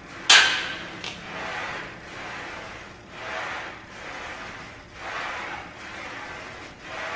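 A single loud metal clank of a barbell against a power rack just after the start, then a man breathing hard in a steady rhythm, a forceful exhale about every two seconds through his incline bench press reps.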